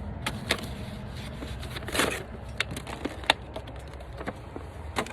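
Product packaging being opened by hand: scattered crinkles, clicks and scrapes, with a louder rustle about two seconds in.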